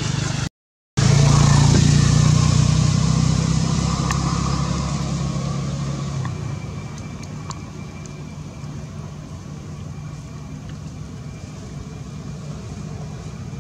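Engine hum of a motor vehicle, loudest just after a brief dropout near the start and fading away over the next five seconds. Steady outdoor background noise is left after it.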